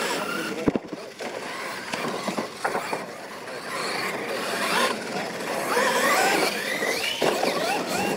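Losi LMT radio-controlled monster trucks racing, their electric motors whining and sliding up and down in pitch as the throttle is opened and eased off. There is a sharp knock about a second in.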